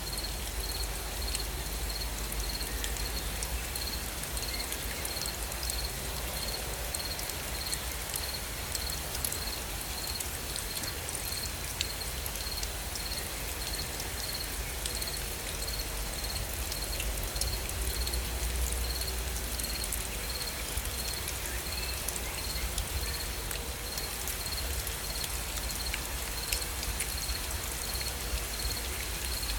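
Steady gentle rain with drops ticking on surfaces, and an insect chirping a steady high-pitched beat throughout, about three chirps every two seconds.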